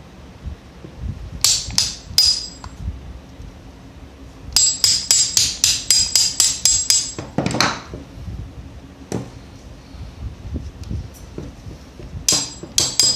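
Small hammer tapping a punch to drive a spring pin out of a blank pistol's frame, sharp metallic taps with a ringing note. Two single taps, then a fast run of about ten taps at roughly four a second, and another quick run near the end.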